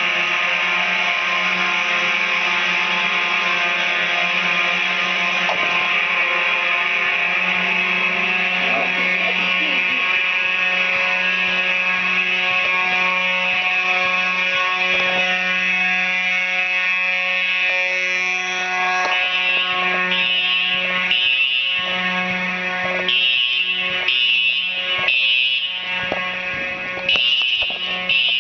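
Simplex fire alarm sounding: a steady, loud buzzing alarm tone. In the last ten seconds or so it is joined by a signal that pulses on and off about once a second.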